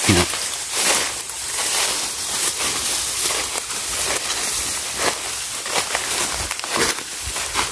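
Footsteps and the rustle of tall grass and leafy branches brushed aside while walking through thick undergrowth, a close, irregular crackling and swishing.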